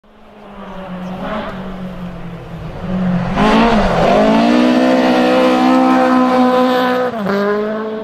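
Fully tuned Toyota 2T-G 1.6-litre twin-cam inline-four on Solex carburettors, in a TE27 Corolla Levin/Trueno. The engine note fades in, then rises sharply about three seconds in. It holds high and steady, and drops back a little after seven seconds.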